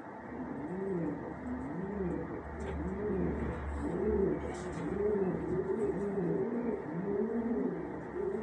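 Male Gorguero pouter pigeon nest-calling from its nest bowl: a steady run of rising-and-falling coos, repeated without pause. From about four seconds in the coos come denser and overlap one another.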